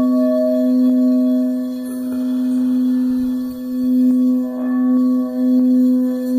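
Frosted quartz crystal singing bowl sounding one steady low tone with a fainter higher overtone, its loudness swelling and dipping in a slow waver about once a second.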